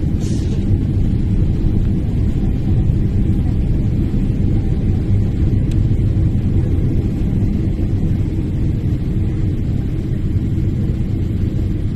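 Steady, loud cabin rumble of an airliner descending to land, the engine and airflow noise heard from inside the passenger cabin.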